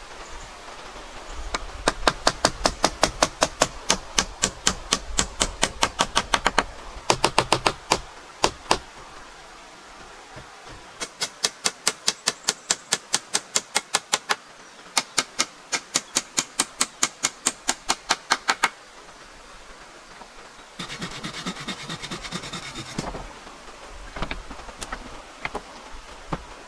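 Fast hammering on wood: sharp strikes at about five a second, in four runs with short pauses between them. Near the end there is a brief rasping, scraping noise of about two seconds.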